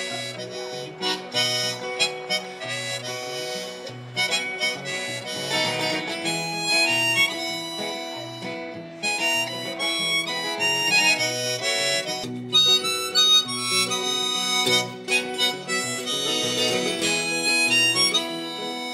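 Harmonica played in a neck holder over a strummed acoustic guitar, a one-man busker's tune with held reedy notes over a steady strum; the guitar runs through a small acoustic amplifier.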